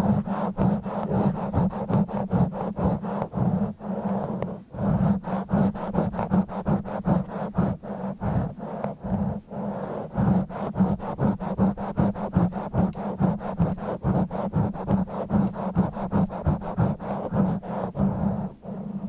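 Fingers scratching and rubbing directly on a bare microphone with no windscreen, in a fast, continuous run of rasping strokes, several a second, with a heavy low rumble close on the mic.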